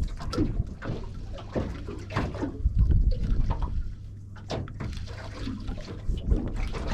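Water slapping and splashing irregularly against a small boat's hull, over a steady low rumble.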